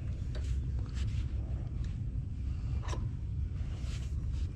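Small clicks and scrapes of a brass refrigerant-hose fitting being handled at an air conditioner's service valve, a few separate ticks over a steady low rumble.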